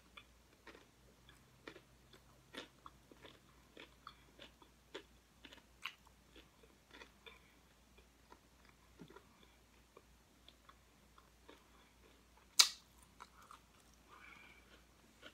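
Close-miked chewing and crunching of nachos with tortilla chips: a string of small crisp crunches, with one loud sharp crunch near the end.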